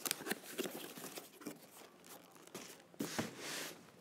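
A small cardboard box being handled and opened: short scrapes, taps and rustles of the cardboard and its flaps, with a longer, louder rustle about three seconds in.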